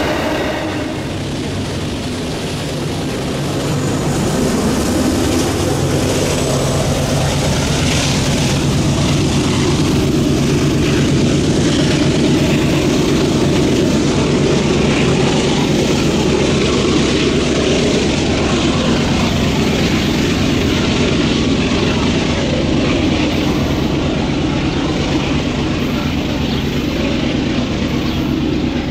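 Union Pacific diesel-electric freight locomotive running under power, a steady low engine drone that stays loud throughout.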